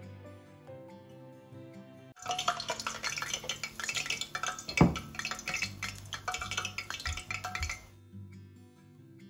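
Hot cooking oil in a wok sizzling and crackling as bits of batter fry in it, a check that the oil has reached frying temperature. The sizzling starts about two seconds in, has one louder knock about halfway through, and cuts off suddenly near the end. Soft background music plays before and after it.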